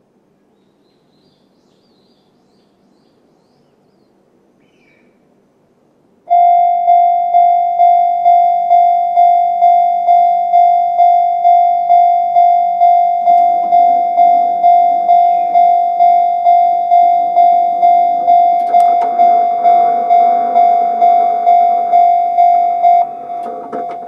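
Japanese level-crossing electronic warning bell in the Chichibu Railway tone, starting about six seconds in: a single clear ding repeated just under twice a second. A rumble from the approaching train builds underneath from about halfway. The bell drops sharply in volume near the end as the barriers come down.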